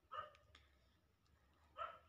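A dog barking: two short barks about a second and a half apart.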